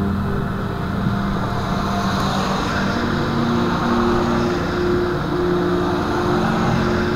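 Cars passing on a wet road, their tyres hissing, the sound swelling a couple of seconds in and easing off again.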